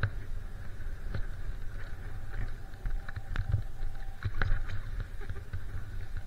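Skis sliding over snow, with uneven low wind rumble on the skier's camera microphone and a few sharp clicks scattered through.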